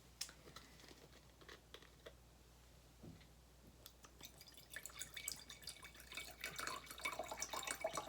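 Faint liquid sounds: a few small clicks, then from about five seconds in a busy run of dripping and trickling.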